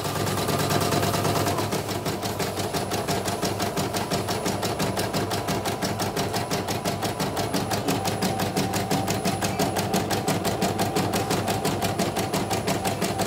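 CNY portable computerized embroidery machine stitching a design, its needle working in a steady, rapid run of mechanical clicks. It is a test run after the machine has been serviced and its settings redone.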